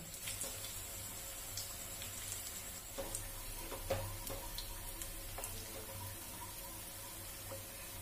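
Spinach-and-gram-flour koftas deep-frying in hot oil: a steady sizzle with scattered crackles and pops, stirred with a wooden spatula. The pops are sharpest around the middle.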